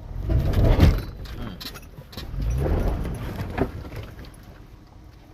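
Toyota 4Runner crawling over rocks: the engine pulls up under load twice, about half a second in and again near three seconds, with rattles and sharp clunks from the body and underside.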